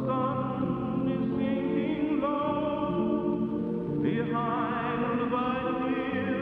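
Dark, spooky background music: sustained low chords under wavering, choir-like sung voices, with a new vocal phrase coming in about four seconds in.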